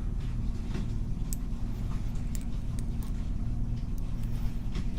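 Light metallic ticks of a lock pick bouncing against the pin stacks inside a cheap Tru Bolt padlock, a few scattered clicks, over a steady low background hum.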